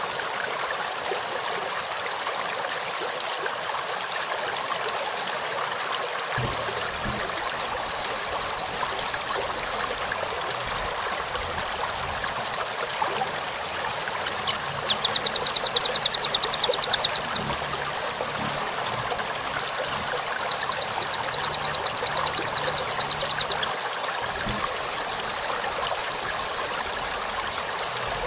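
Velvet-fronted nuthatch (rambatan) calling in long, very rapid high-pitched trills of repeated notes, in bursts with short breaks, starting about six seconds in. A steady sound of running stream water lies underneath throughout, alone for the first six seconds.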